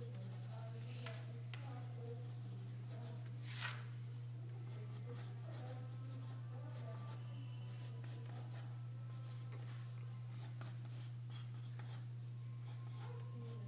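Graphite pencil scratching across paper in short, irregular sketching strokes, one louder stroke a little before four seconds in, over a steady low hum.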